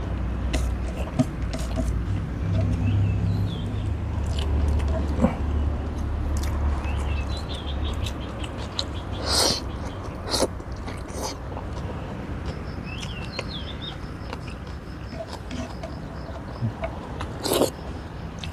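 Close-up eating sounds of a man eating rice and grilled-eggplant salad by hand: chewing with his mouth full and a few sharp lip smacks.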